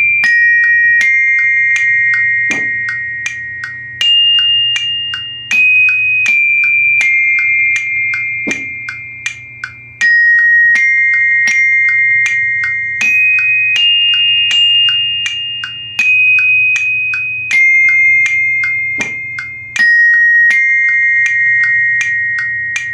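Glockenspiel (bell kit) bars struck with hard mallets, playing a simple melody of single notes at about two strokes a second, each note ringing on over the next. It is loud and bright.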